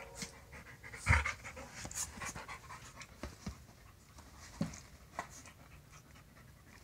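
Dog panting and making small mouth and breathing noises while nibbling at another dog, with scattered soft clicks and a low thump about a second in.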